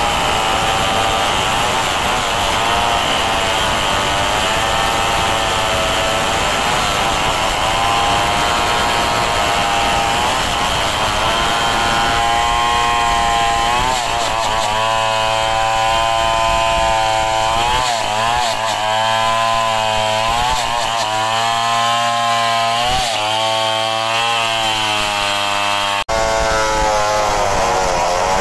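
Two-stroke Stihl chainsaws running at high revs while cutting a log, the engine pitch repeatedly sagging and picking back up as the chains bite into the wood.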